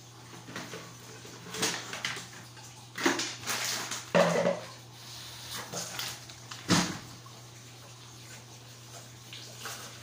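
Handling noises of a plastic packet being gripped and pulled open, crinkling in irregular bursts, with a sharp knock a little before the seven-second mark, over a steady low hum.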